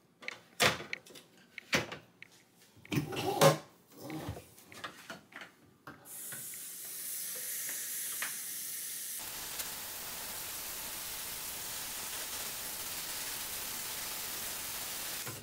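A few knocks and clicks, then a kitchen faucet's pull-down sprayer running water into a countertop dishwasher's water tank. The water is a steady hiss starting about six seconds in, growing fuller about three seconds later.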